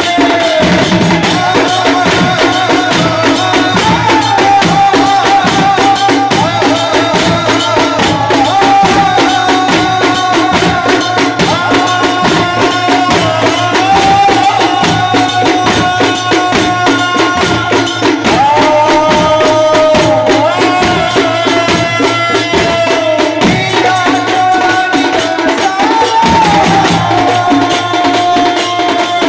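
Odia sankirtan devotional music: a lead male voice sings long, held, wavering notes through a microphone and loudspeakers over a steady, fast percussion rhythm.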